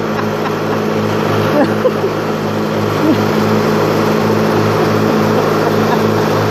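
Small lawn mower engine running steadily with a regular pulsing beat, about three a second, in its low hum.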